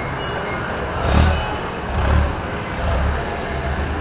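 Forklifts running and moving, a steady machine noise with low rumbling swells about one, two and three seconds in.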